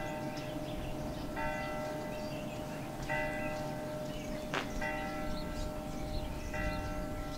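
A single bell tolling, struck four times at an even pace of just under two seconds, each strike ringing on over a steady low hum.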